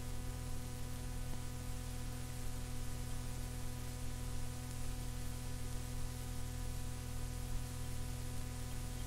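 Blank lead-in of an audio cassette playing: steady tape hiss with a low, buzzy mains hum.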